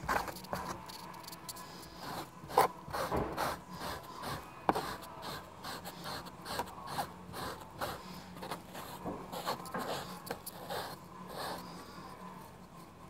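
Pumice stone scrubbed back and forth over car seat carpet, a quick, uneven run of short scraping strokes as it rakes embedded dog hair out of the fibres.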